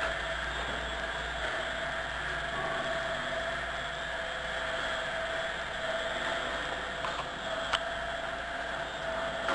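Stainless-steel drum food mixer running, its inverter-controlled electric drive giving a steady whir with one held tone over a constant hiss; a single click about eight seconds in.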